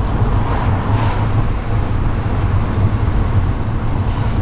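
VW Golf Mk6 1.4 TSI turbocharged four-cylinder heard from inside the cabin while driving: a steady low engine and road drone.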